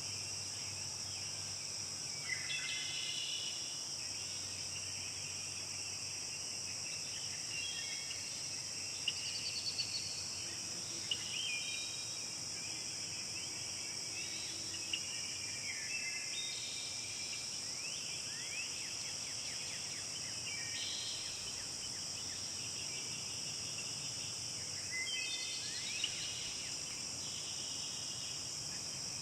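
Forest ambience: a steady, high-pitched insect drone, with birds singing short warbling phrases every few seconds.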